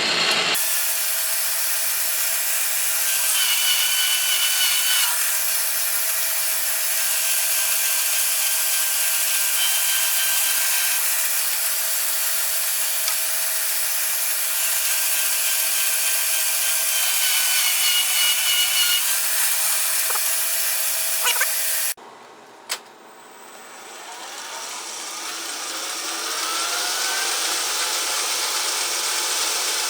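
Metal lathe taking a turning cut: a steady, hissy cutting noise with a steady hum and a brief high squeal twice. About two-thirds of the way through it drops off abruptly, then a rising whine builds as the lathe spins up again.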